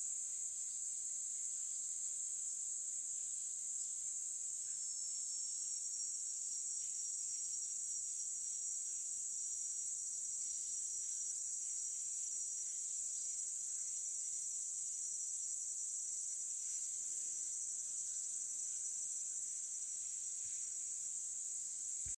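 Steady, high-pitched chorus of insects droning without a break, with a second thin, steady tone joining about four seconds in.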